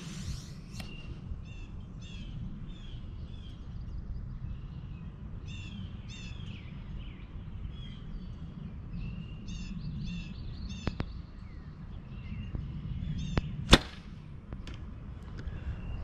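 Oneida lever bow loosed once, a single sharp snap near the end that is the loudest sound, with a couple of lighter clicks a few seconds before it. Small birds chirp throughout over a low wind rumble on the microphone.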